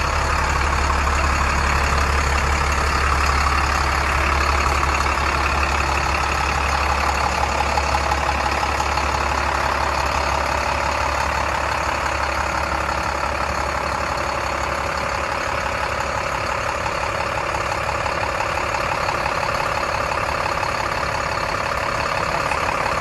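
Diesel engine of a 2004 International box truck idling steadily. Its low rumble eases a little about halfway through.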